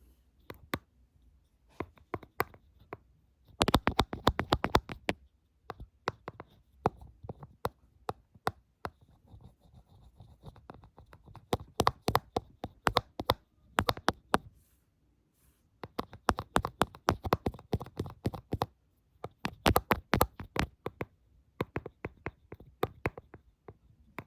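Close-miked fingertips and nails tapping and scratching as ASMR triggers: fast runs of sharp taps with short pauses between them.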